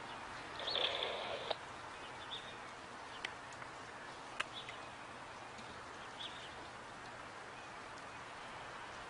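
Faint, scattered bird chirps over a steady outdoor hiss, with a couple of sharp clicks.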